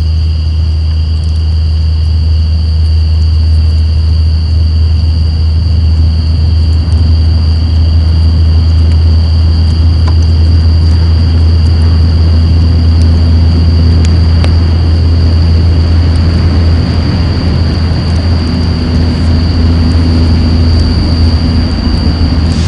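Semi-trailer truck's diesel engine, a loud, steady low rumble that holds level throughout. A steady high-pitched trill of night insects runs above it.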